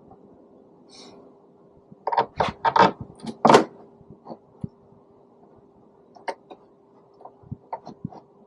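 Quick run of knocks and clatters from parts being handled and set in place on the tailgate, loudest about two to four seconds in, then a few single clicks, over a faint steady hum.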